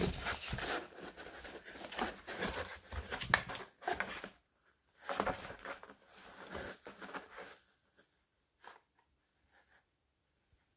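Cardboard box scraping and rustling as a cat shifts and turns around inside it, in two bouts of a few seconds each, then a few faint taps.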